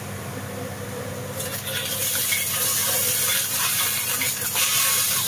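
Diced carrots sizzling in oil in a hot wok while a metal ladle stirs and scrapes them, over a steady low hum. The sizzle gets louder about a second and a half in as the ladle works the pan.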